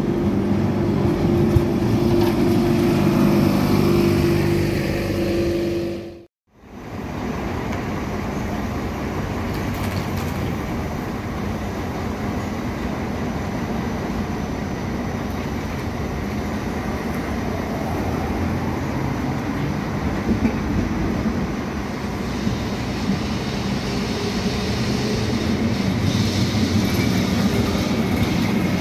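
Old two-axle Carris tram approaching with a steady hum. After a cut, city street traffic, growing louder near the end as tram 548 passes close by.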